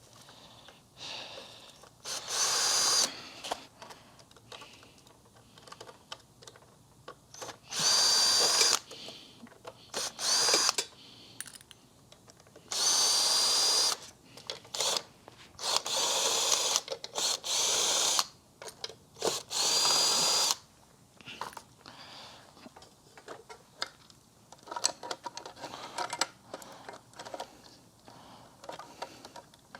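Power drill-driver run in short bursts, about seven of a second or less, with a steady high whine, and small clicks and rattles of parts handled in between: screws being driven out while a Kirby Generation 3 vacuum is taken apart.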